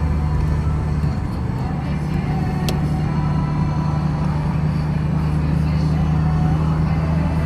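Inside a Chevrolet Prisma cruising on the highway in fifth gear: a steady low engine drone mixed with tyre and wind noise.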